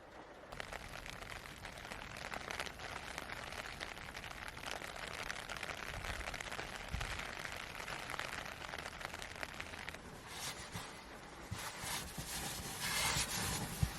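Wood campfire crackling and popping with a steady hiss; it starts about half a second in and grows busier with louder pops near the end.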